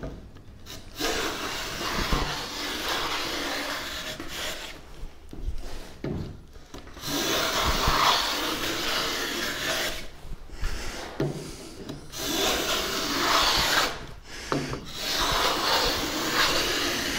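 Hand plane shaving the edge of a Valchromat (dyed wood-fibre board) panel, a series of long rasping strokes of one to three seconds each with short pauses between. It is taking the material down to a bevel for a mitre joint.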